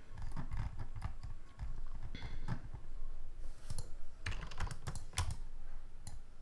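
Typing on a computer keyboard: irregular key clicks, with a quick run of keystrokes about four to five seconds in.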